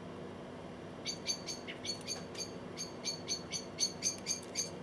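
Common blackbird calling: a fast, steady run of short high chirps, about five a second, starting about a second in.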